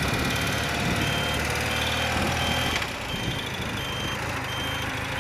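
A 30-year-old BMW motorcycle's engine running steadily as it is ridden, with a short high electronic beep repeating about every three-quarters of a second.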